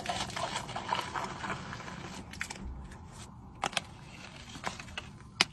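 Milk poured from a height splashing into a plastic cup for the first couple of seconds, then a few sharp clicks of the cup being handled.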